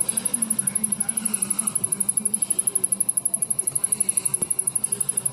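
Samsung rear-projection CRT television powered up but not starting, ticking rapidly and evenly from inside at more than ten ticks a second. The owner takes the ticking for a short somewhere inside, with none of the internal fuses blown.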